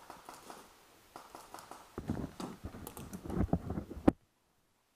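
Irregular clicks and rustling handling noise, louder in the second half, ending in one sharp click, after which the audio cuts out to dead silence.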